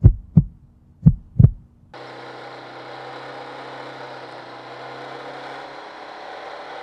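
Heartbeat sound effect: two double thumps, lub-dub, about a second apart. About two seconds in it cuts abruptly to steady wind rush and a low engine hum from a motorcycle riding along.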